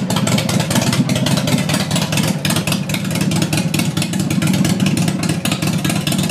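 Big Dog Pitbull chopper's V-twin engine idling steadily, with an even, rapid pulsing from the exhaust.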